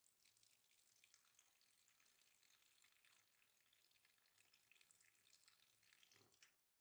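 Faint kitchen tap water pouring into a bowl of water, splashing and bubbling, with small irregular drips; it cuts off suddenly near the end.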